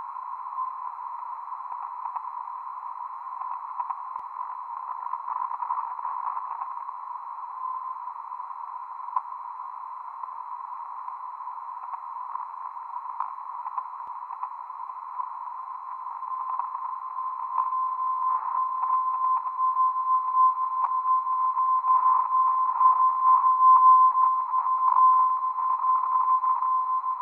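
Receiver audio tuned to the Belgian BRAMS meteor-radar beacon, filtered to a narrow band of hiss around a 1 kHz tone. A brief meteor ping comes near the start. From about two-thirds of the way through, a steady tone swells and then eases off: the beacon's signal reflected off an aircraft.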